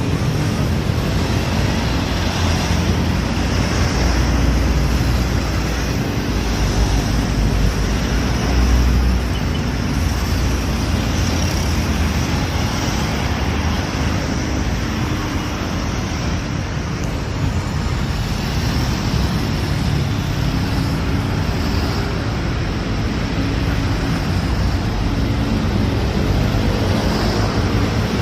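A convoy of buses driving past: a steady low engine rumble and tyre noise, with no telolet horn sounded.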